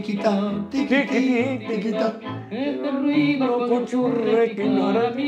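Recorded song: a man singing a melody with vibrato over instrumental accompaniment with a stepping bass line, an old tango-style record.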